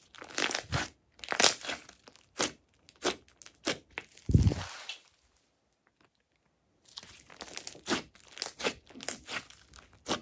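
Glossy pink slime with small beads squeezed, folded and pressed by hand: wet squelches and quick crackling clicks of air pockets popping, with one heavier squelch about four seconds in and a pause of a second or two shortly after.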